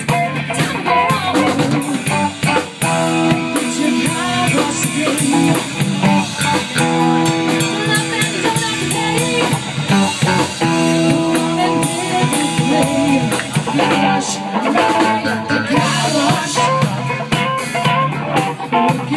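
Live band playing a funk song on electric guitars, drum kit and keyboard, with a woman singing.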